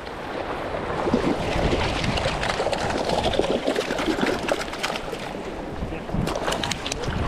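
Shallow water sloshing and splashing, with many small irregular splashes.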